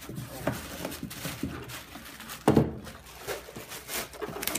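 Cardboard packaging being handled and opened, with rustling and scraping, small knocks, and one loud thump about two and a half seconds in.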